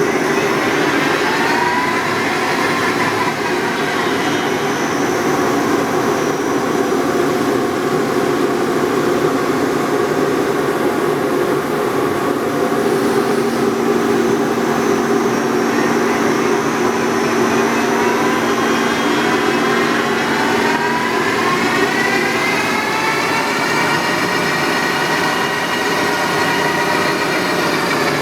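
Clausing Metosa electronic variable-speed lathe running under power, its drive and spindle whine changing pitch with the speed setting over a steady hum. The whine sinks after a couple of seconds, climbs again later, holds high, then falls near the end as the speed is turned down.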